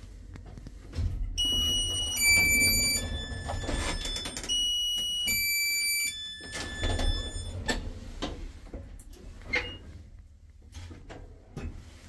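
Electronic chime in a Marrocco hydraulic lift car: a falling three-note tone sequence, played twice, over a low rumble. A few sharp clicks follow near the end.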